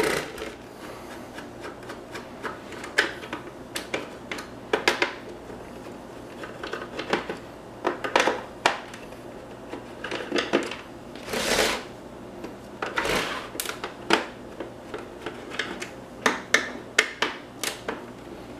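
Screwdriver turning tight screws out of a 3M Cantata 700 tape cartridge's case: irregular clicks and taps, with several longer scraping sounds a little past the middle.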